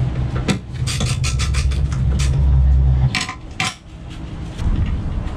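Small metal hardware clinking and tapping as a spacer and bolt are worked into the mounting of an RV power-step motor: a run of light clicks, then two louder clinks about three seconds in. A steady low hum runs underneath and drops out for a moment after the louder clinks.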